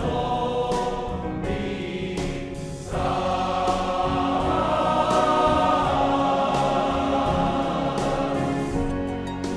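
Large male-voice choir singing with a symphony orchestra accompanying. The music grows louder about three seconds in and eases off near the end.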